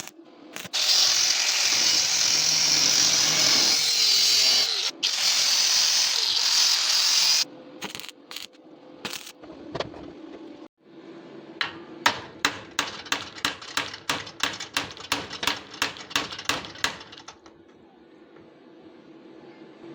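Welding: a loud, steady hissing crackle for about six seconds, cut off briefly once. Then a few scattered knocks, and a run of quick, even hammer strikes at about four a second for some five seconds.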